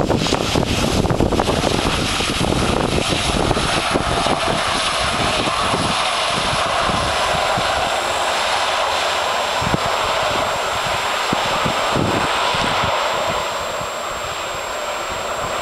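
Boeing 737-300's CFM56 jet engines running as the airliner rolls out on the runway after landing. The jet noise is steady and eases a little near the end as the aircraft moves away.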